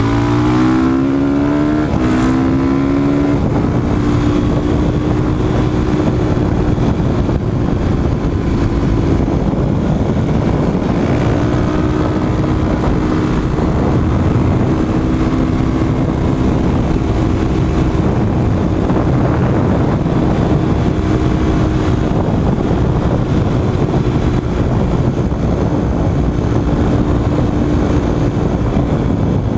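2013 Yamaha WR450F supermoto's single-cylinder four-stroke engine, revving up over the first few seconds, then running at a steady cruising speed with only small changes in pitch, under a steady rush of wind on the microphone.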